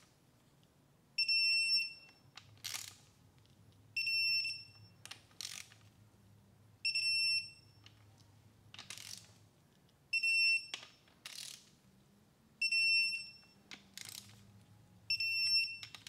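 Digital torque wrench beeping as it reaches its set torque of 89 inch-pounds on camshaft tower nuts tightened in sequence. Six short high beeps come about every two and a half to three seconds, each followed by a brief ratchet rasp as the wrench is reset for the next nut.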